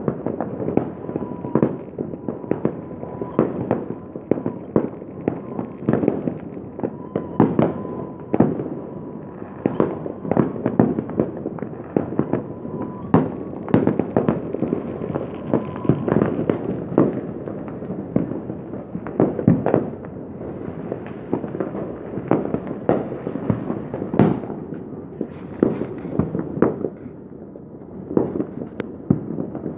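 Many fireworks and firecrackers going off at once: a continuous, dense crackle of overlapping bangs and pops without a break. For about the first half a faint steady tone runs beneath them.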